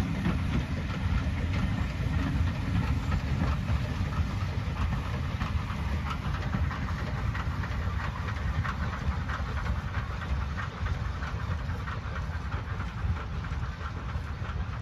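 Steam-hauled passenger train of coaches passing, wheels rumbling and clattering on the track, fading gradually as it draws away.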